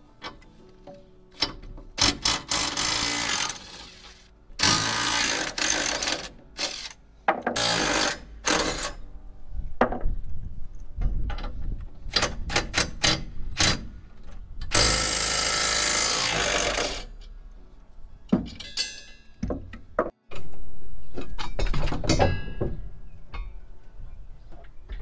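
Cordless impact driver hammering bolts on a steel Curt A25 fifth-wheel hitch in a series of bursts, the longest about fifteen seconds in, as the hitch is unbolted for a height adjustment. Background music plays underneath.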